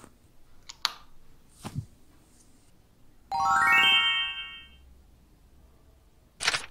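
A quick upward run of bright chime-like notes, each ringing on as the next comes in, fading out over about a second and a half: a musical sting for the title. Two faint clicks come before it, and a short burst of noise near the end.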